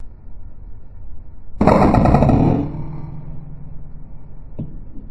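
Air rifle shot: a sudden loud burst about one and a half seconds in that lasts about a second and fades, over a steady background noise, with a short knock near the end.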